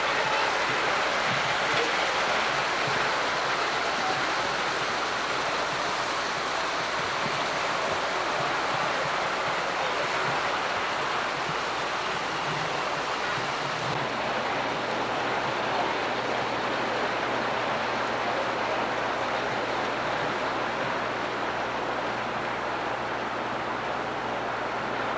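O scale model freight train rolling along the layout's track: a steady rushing rumble of wheels on rail. A low steady hum joins about halfway through.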